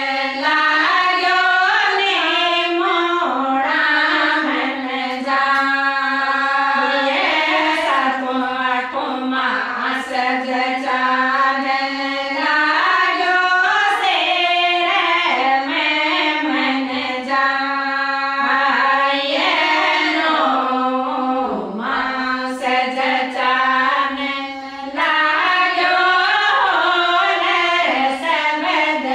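Women singing a Rajasthani folk song together, a ritual song for the new mother's Jalwa well-worship, sung in melodic lines with brief breaths between phrases.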